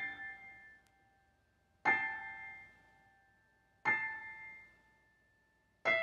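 Software piano in Logic playing back a MIDI composition: a high note or small chord struck about every two seconds, each ringing out and fading within a second.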